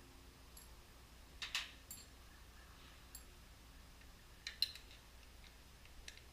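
Faint, scattered clicks and clinks of hand tools and small metal parts being handled, with two louder clusters, about a second and a half in and again about four and a half seconds in.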